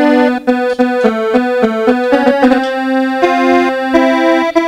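A keyboard instrument playing a melody of long held notes and chords, with no singing.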